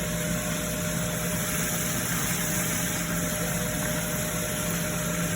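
Steady hum of a running kitchen appliance motor, even and unchanging, with a constant whine over a broad whooshing noise.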